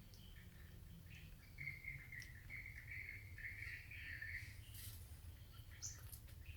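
Faint high chirping calls in a quick run through the middle, with a few clicks and a short higher call near the end, over a low steady rumble.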